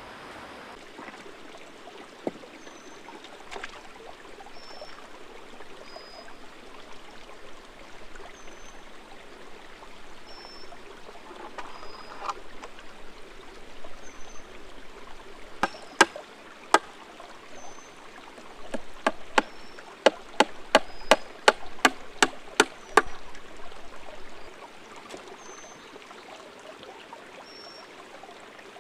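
Steady rushing of running water, with a short high chirp repeating about every second and a half. About halfway through comes a run of sharp clicks, the loudest sounds here, which stops about two-thirds of the way in.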